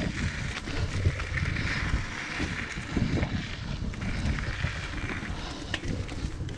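Diamondback Mission 2 mountain bike descending a dirt trail: tyres rolling and the bike rattling over the rough ground, an uneven rumble with scattered knocks, and wind on the microphone.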